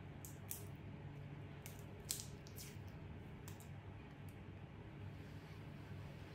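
A macaque eating fruit pieces: a scatter of faint wet clicks and smacks from its mouth and fingers, over a low steady hum.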